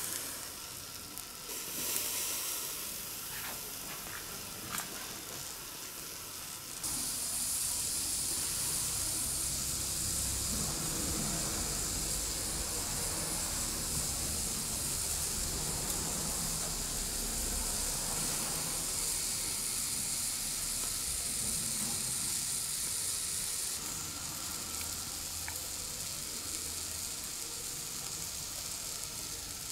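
Scored chestnuts roasting on a wire grill over glowing charcoal in a hibachi, sizzling and hissing steadily, with a few faint crackles in the first few seconds. The hiss gets louder about seven seconds in and drops back about twenty-four seconds in.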